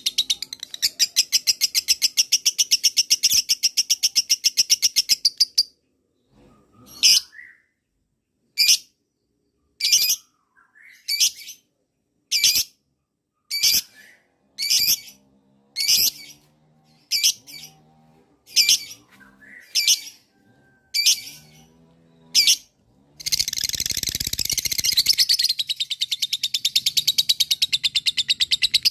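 Lovebird giving its long 'ngekek' chatter: a fast, unbroken run of shrill notes for about six seconds. This is followed by single sharp chirps about one a second, and a second long rapid chatter starts a few seconds before the end.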